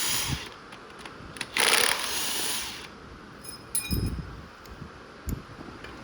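Metal engine parts and hand tools handled during an engine teardown: a rushing noise for about a second, then a metallic clink with a short ring and two dull thuds.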